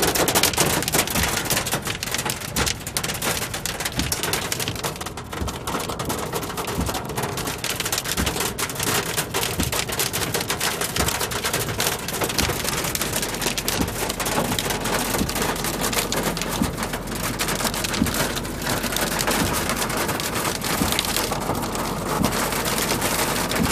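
Pea-sized hail pelting a car's roof and windows, heard from inside the car: a dense, continuous clatter of many small impacts.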